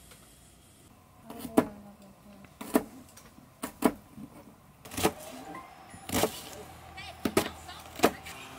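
A series of about nine sharp knocks and clacks, irregularly spaced, starting about a second and a half in, some with a brief ring after them.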